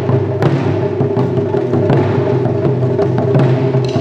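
Live Japanese folk music: shamisen played with sharp, clicking plucks over sustained notes, with taiko drum strokes.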